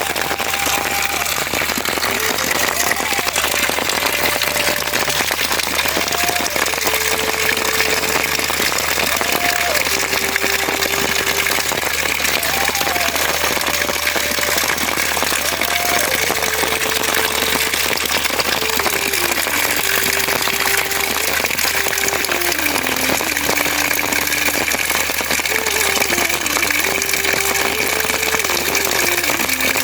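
Steady, loud rainfall hissing, with a slow single-voice melody over it that holds notes and slides between them.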